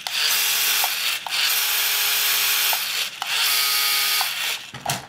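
Steering servo of a Cada DeTech C51042W RC truck whirring with a gear-grinding buzz in three bursts, each about a second to a second and a half long: a crazy noise.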